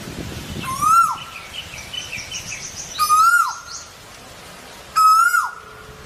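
Male Asian koel calling: three loud fluty whistles about two seconds apart, each sliding up and then dropping steeply. A smaller bird chirps in quick, higher notes between the first two calls.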